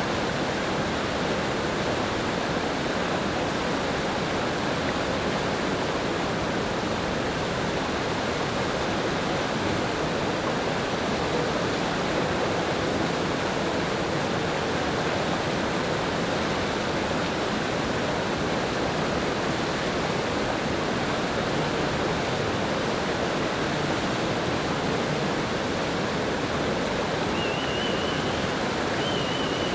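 Whitewater rapids of a canoe slalom course rushing steadily, a continuous even roar of churning water.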